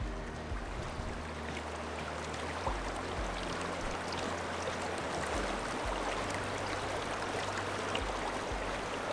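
The Rio Grande rushing steadily over its rocky bed, a continuous wash of moving water.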